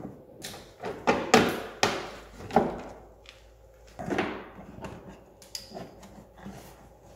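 Tesla Model 3's plastic front inner fender liner being pushed and worked into the wheel arch by hand: a series of scrapes and knocks of stiff plastic, bunched in the first two and a half seconds and again about four seconds in.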